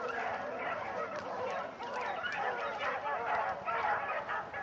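A pack of rabbit-hunting dogs baying, several voices overlapping in a steady chorus of short calls. This is the sound of hounds running a rabbit's trail.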